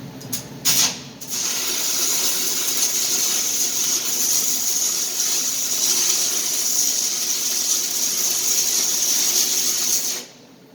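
Stick welding (shielded metal arc): the electrode strikes with a couple of brief sharp flashes in the first second, then the arc burns with a steady, loud sizzling hiss for about nine seconds and stops abruptly near the end.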